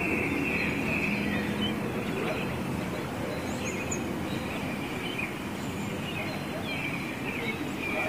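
Steady outdoor background noise with wild birds calling in the background: short high chirps and brief trills come and go through it.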